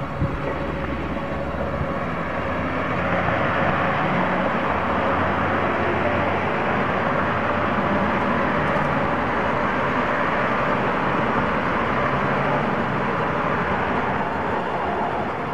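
Road traffic on the street going by as a steady rush of tyre and engine noise. It swells about three seconds in and eases off near the end. There is a short knock right at the start.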